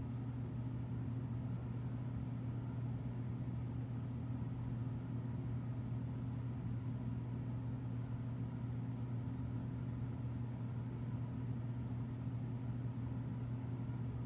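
A steady low hum that stays even throughout, with no other sounds.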